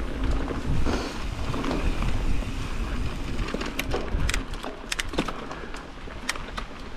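Mountain bike riding down a dirt trail: wind rumbling on the microphone over steady tyre noise, with a run of sharp, irregular clicks and rattles from the bike over rough ground in the second half.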